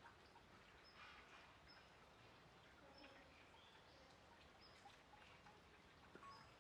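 Near silence: faint outdoor ambience with a few short, high bird chirps scattered through it.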